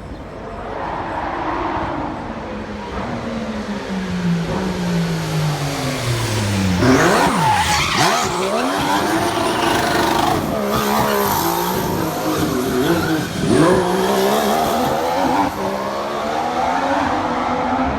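2014 Formula 1 car's 1.6-litre turbocharged V6 hybrid engine. Its note falls steadily, then from about seven seconds in it revs up and down repeatedly over a loud hiss of skidding tyres.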